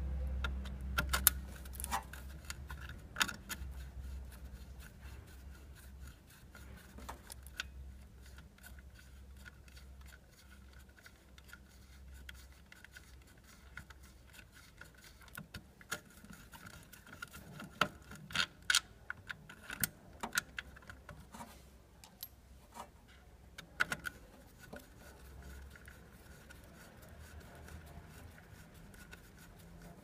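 Scattered small metallic clicks and scrapes of a screwdriver and wires being handled at a refrigerator compressor's terminal box, with a cluster of clicks past the middle. A low hum is heard near the start.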